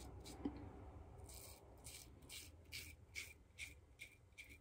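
Faint, rasping strokes of a Gillette Old Type open-comb safety razor scraping through lathered stubble, about two short strokes a second starting about a second in. A brief soft knock comes about half a second in.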